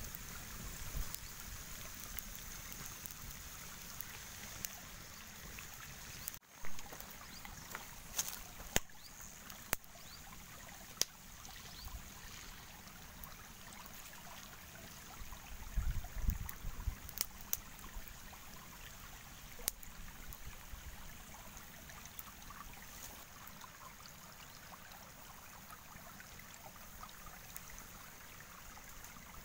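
Steady rush of a small stream, with scattered sharp crackles and pops from a wood fire. A cluster of low thumps comes about sixteen seconds in.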